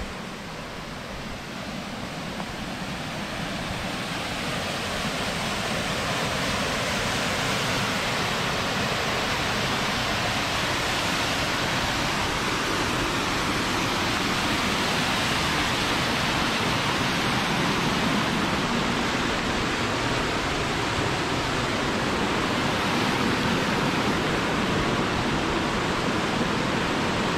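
Waterfall pouring into a gorge: a dense, even rush of falling water that grows louder over the first few seconds and then holds steady.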